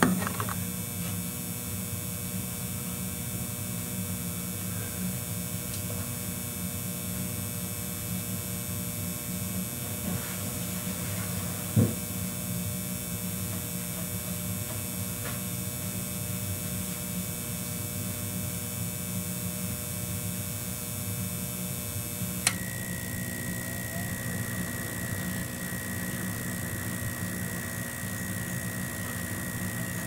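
Steady hum from a 1986 Lennox G14 Pulse furnace waiting to start, with a sharp click about twelve seconds in. A second click comes about three-quarters of the way through, after which a steady high whine joins the hum as the furnace's heat-exchanger vent blower starts its start-up run.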